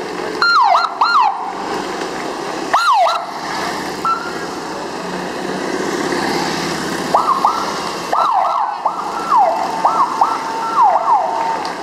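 Police escort siren sounding in short bursts of quick falling whoops: three in a row near the start, one about three seconds in, and a longer string of them from about seven seconds to near the end.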